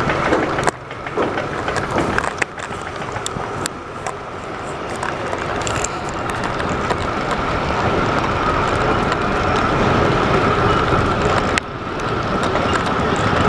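Wind rushing over the microphone of a handlebar-mounted camera on a moving bicycle, mixed with tyre rumble on a dirt road, with a faint steady whine; the noise grows louder through the middle as the bike picks up speed.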